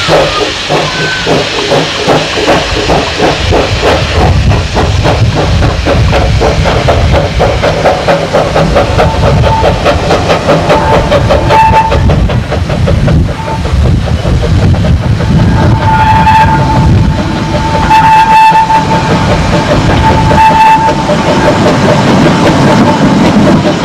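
Small steam tank locomotive working toward the listener with a quick, even chuffing exhaust beat. It sounds its whistle in several blasts on one steady note, short ones first, then longer ones.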